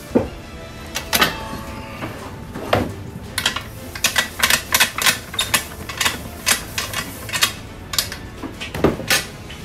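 Sharp knocks and clatter as freshly cooked rice is tipped out of a large metal rice pot into a wooden sushi-rice tub (hangiri): a few single strikes, then a quick run of taps for a few seconds in the middle, and one more strike near the end.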